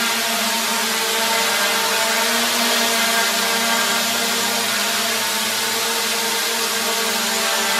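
MJX Bugs 3 quadcopter's brushless motors and propellers buzzing steadily as it hovers, a high whir over a hiss.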